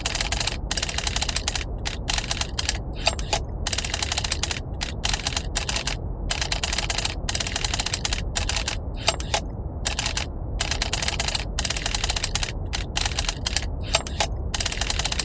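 Typewriter keys clacking in quick irregular runs with short pauses between them, over a steady low rumble of brown noise.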